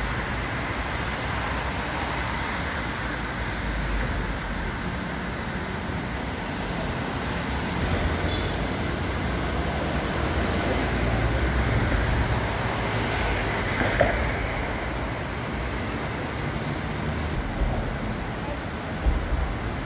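Outdoor city street noise: a steady wash of traffic with a low rumble, and one short sharp knock about two-thirds of the way through.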